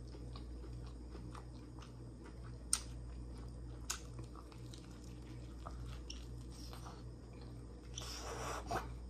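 A person chewing and biting fried chicken close to the microphone, with small wet mouth clicks and two sharper crunchy clicks early in the chewing, over a steady low hum. A short hiss near the end.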